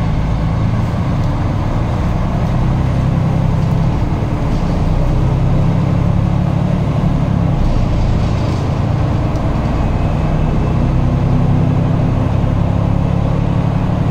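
Mercedes-Benz Conecto G articulated bus heard from inside while driving: a steady engine and drivetrain drone mixed with road noise. The low engine note shifts a few times as the bus changes speed.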